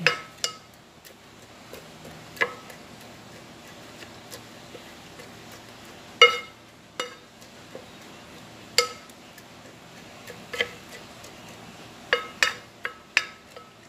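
Plastic rice paddle knocking and scraping against a rice cooker's non-stick inner pot while stirring raw glutinous rice, grated coconut and water together. Scattered short clinks with a brief ring, about ten of them, the loudest about six seconds in.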